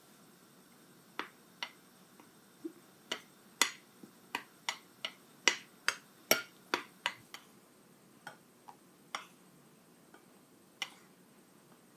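A run of sharp, irregular clicks and taps, about twenty in all, coming thick and fast in the middle and thinning out toward the end.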